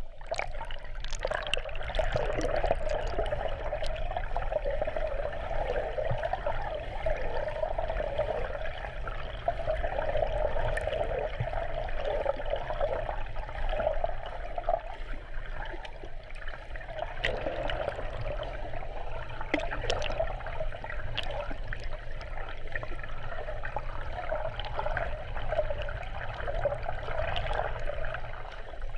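Muffled, continuous churning and bubbling of water from a swimmer's freestyle strokes, heard through a camera held underwater in a pool, with occasional small clicks.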